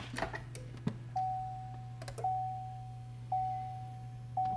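Car warning chime ringing about once a second: four single-tone dings, each sustained and fading into the next, sounding while the C6 Corvette sits with its ignition in accessory mode to prime the fuel system. A steady low hum runs underneath.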